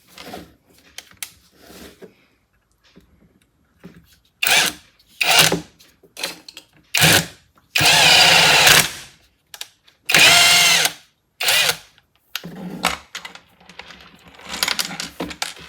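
Cordless brushless drill-driver (SakerPlus 3-in-1 tool in driver mode) driving a screw in a series of short trigger bursts, with two longer runs of about a second each where the motor's whine rises and falls.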